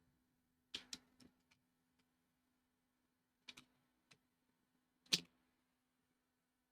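A few small, sharp clicks and taps over near silence, two near the start, a pair in the middle and the loudest about five seconds in, with a faint steady hum underneath.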